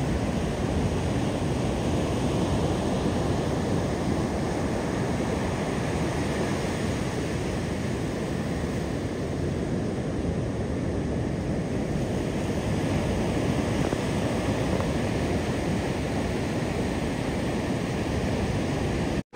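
Ocean surf breaking and washing up the beach, a steady rushing roar that cuts off abruptly near the end.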